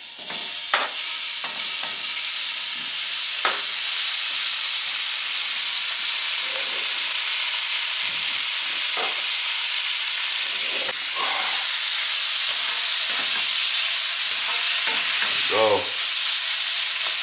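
Cubed beef frying in melted butter in a stainless steel pan: a steady sizzle, with a few light knocks in the first seconds as the pieces go in and a spatula stirring the meat near the end.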